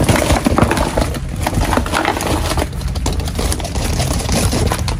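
Live gourami, climbing perch and a swamp eel thrashing in a plastic basin, a busy run of wet slaps, flips and splashes over a steady low rumble.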